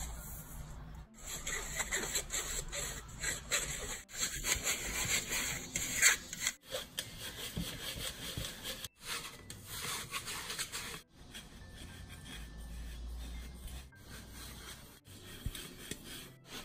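Rice flour rubbed and pressed by hand through a fine stainless-steel mesh sieve: a repeated scratchy rasping, broken off abruptly several times.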